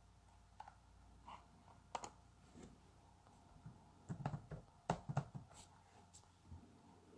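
Faint, scattered clicks and light knocks of hands moving on a table, with a quick run of them about four to five and a half seconds in.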